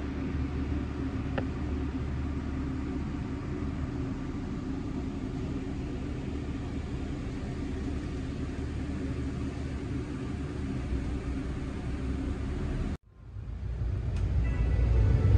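Cruise boat's engine running with a steady low hum. About 13 seconds in the sound cuts off for a moment and comes back louder.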